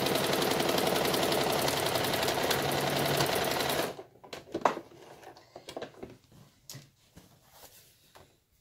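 Toyota domestic sewing machine running a straight stitch at a steady, fast pace, stopping abruptly about four seconds in. Then come a few light clicks and handling noises as the fabric is pulled out from under the presser foot.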